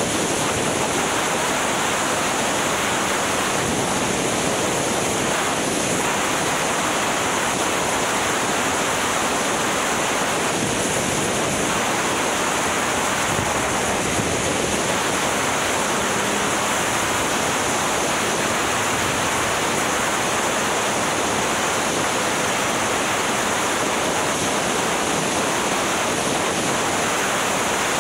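Steady wind rush buffeting a motorcycle-mounted camera's microphone while riding at speed, an even hiss with no distinct engine note.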